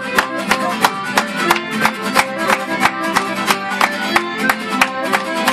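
Folk band playing a fast instrumental tune on fiddle, strummed acoustic guitar and accordion, with a sharp beat about three times a second.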